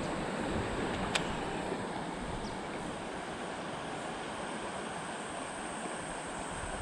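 Steady rushing of shallow river rapids over rocks, with a single sharp click about a second in.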